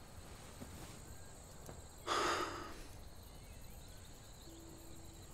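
A person's single short, sharp breath about two seconds in, loud against a quiet room. A low held music note comes in near the end.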